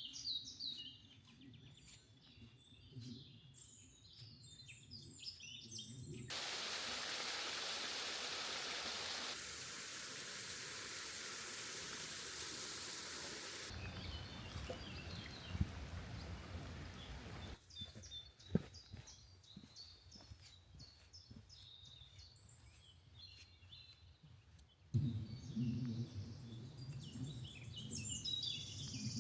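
Faint woodland ambience of small birds chirping and singing, in several cut-together stretches. A steady rushing hiss covers the birds from about six to fourteen seconds in, and a couple of sharp clicks come a little later.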